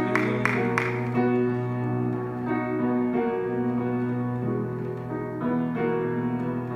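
Piano played live, the slow opening of a song: sustained chords with shifting notes over a held low note, with a few sharp strokes in the first second.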